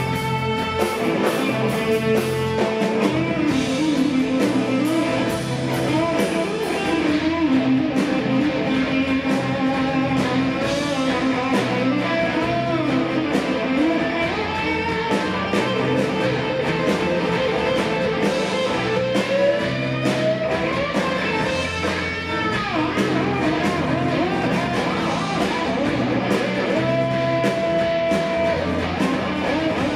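Rock band playing live: an electric guitar plays lead lines with bent notes over bass and drums.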